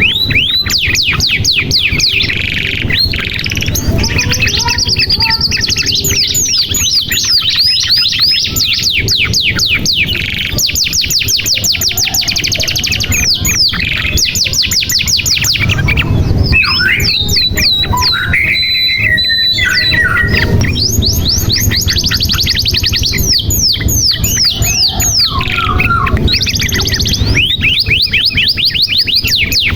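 Domestic canary singing a long, continuous song of rapid trills: quick downward-sweeping notes repeated many times a second, changing to held and wavering whistled notes from about halfway through, then back to fast rolls.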